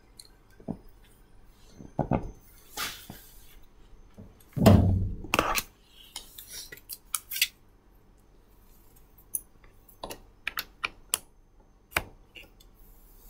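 Irregular clicks, knocks and light clatter of small objects, with one louder thump about four and a half seconds in and a quick run of clicks soon after.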